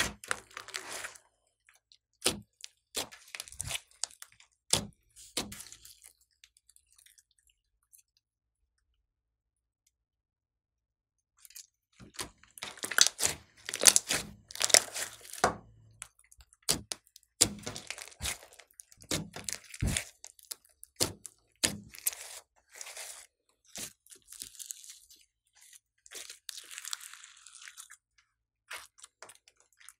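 Glossy slime being kneaded, pressed and stretched by hand, giving sticky, wet clicks and crackling pops. The clicks are sparse at first, stop for about five seconds, then come back thick and crackly as the slime is squeezed into a dome and pulled.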